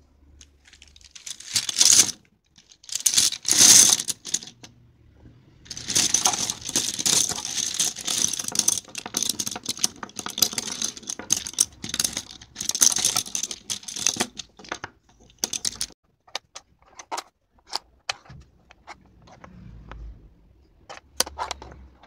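Okey tiles clattering: two short loud pours onto the table, then hands shuffling the pile in a dense, continuous clatter for about eight seconds, followed by separate clicks as tiles are picked up and stacked.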